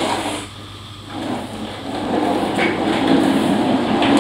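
Small wheels of a child's wiggle-car ride-on toy rolling across a hard floor: a steady rumble that drops away about half a second in and picks up again after about a second.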